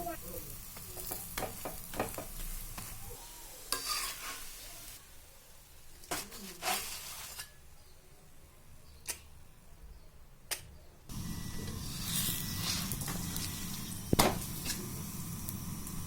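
Aloo paratha frying on a hot griddle, sizzling, with scattered clicks and scrapes of a cooking utensil. The sizzle gets louder about two-thirds of the way through.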